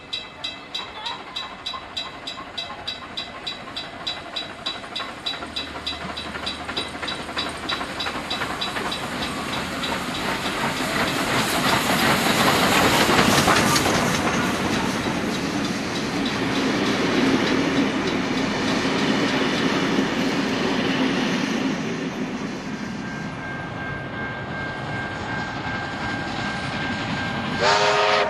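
A steam-hauled passenger train approaching and running through a station. A rapid, regular ringing of about four strokes a second at first is drowned by the train's rising sound, which is loudest about halfway through. The noise stays dense as the carriages pass, then dies away. Right at the end a train horn sounds a chord of several notes.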